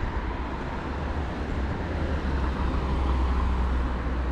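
Road traffic on a city street: vehicles passing with a steady low rumble that swells about three seconds in.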